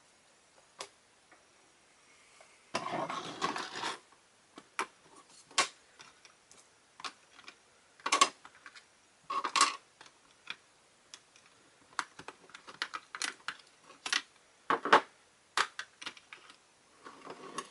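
Hobby tools being set out on a table: a case of screwdrivers put down and handled, with scattered clicks, clinks and clatters of small metal tools. It starts a little under three seconds in, with a rustly stretch at first, then comes as separate sharp knocks.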